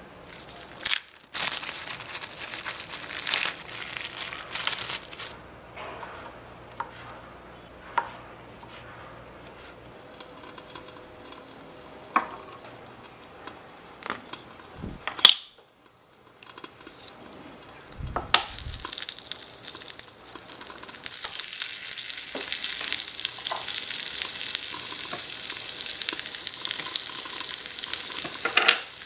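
Scattered small clicks and taps of miniature utensils and dishes being handled, then, a little past the middle, a steady frying sizzle starts as butter and chopped garlic cook in a tiny metal wok over a live flame.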